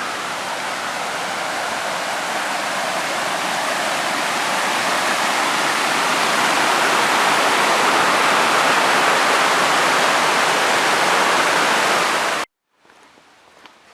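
Waterfall rushing: a loud, steady noise of falling water that cuts off suddenly about twelve seconds in. A much quieter background with a few faint clicks follows.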